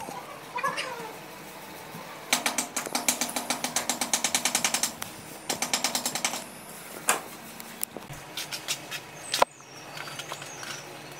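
A cat meows briefly, then a rapid rattling at about eight strokes a second runs for two or three seconds, and a shorter burst and a few scattered knocks follow.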